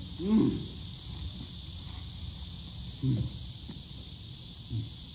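A steady, high-pitched chorus of summer insects, with three brief low voice sounds: about a third of a second in, about three seconds in and near the end.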